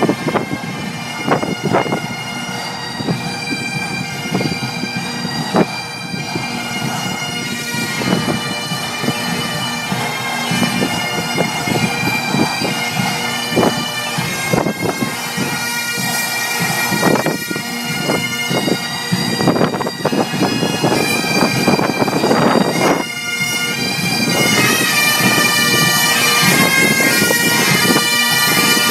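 Bagpipes of a marching pipe band playing a tune, with sustained drone-like tones under the melody. The pipes grow louder about four-fifths of the way through as the pipers come level.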